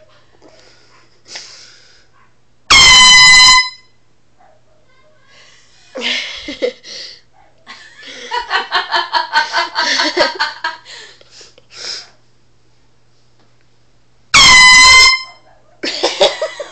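A loud horn blasts twice, each one steady blast lasting about a second, roughly eleven seconds apart, used as a wake-up alarm. People talk and laugh between the blasts.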